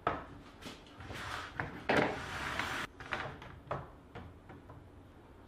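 Knocks, clicks and a sliding scrape as a Kreg track saw is handled and set in place on its guide rail on a plywood sheet. The saw motor is not running. The longest scrape comes about two seconds in.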